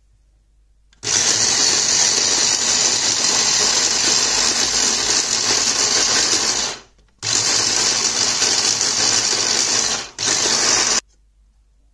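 Electric mini food chopper running, its blade blending chopped greens, egg and olive oil. It is switched on in three goes: a long run of about six seconds, a stop, about three seconds more, a brief dip, then a short final burst.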